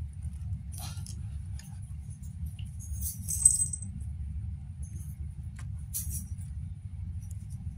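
Kittens scuffling in a woven bamboo basket: scattered light scratches and clicks of claws and paws on the bamboo, the loudest about three and a half seconds in, over a steady low rumble.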